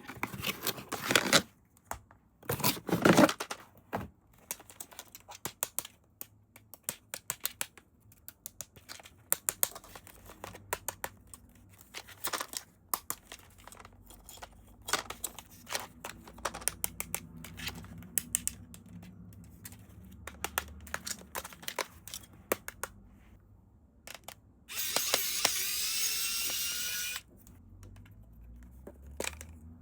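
Toy packaging being handled and opened: plastic crinkling and tearing in the first few seconds, then many small clicks and taps. Near the end comes a loud rasp of about two seconds that rises in pitch.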